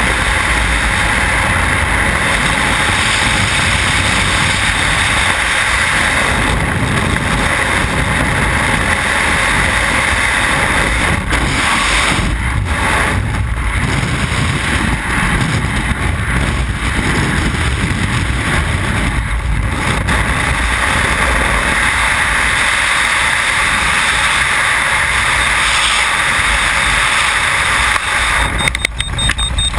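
Freefall wind rushing over a skydiver's camera microphone: loud, steady noise. In the last second or so it wavers and drops as the parachute opens.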